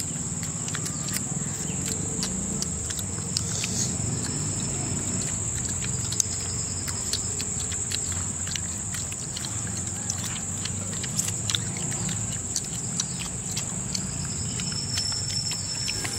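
Close-up eating sounds: hands tearing grilled chicken and mouths chewing, with many small scattered clicks, over a steady high-pitched insect drone.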